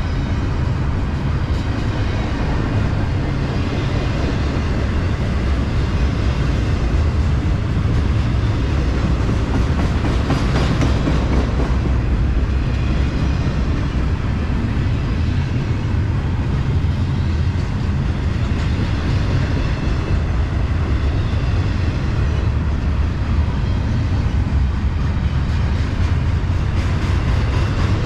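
Freight train rolling past at steady speed: a loud, continuous rumble of steel wheels on rail.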